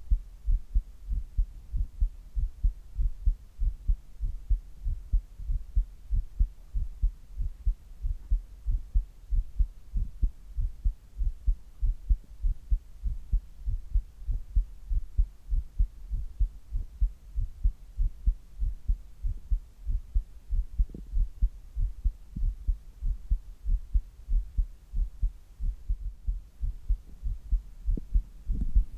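Human heartbeat at its resting rate, picked up close: a steady run of low, dull thuds in lub-dub pairs.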